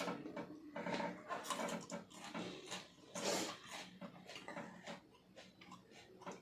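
Close-up eating noises: a person chewing and smacking, with sharp breaths, in a run of short irregular sounds.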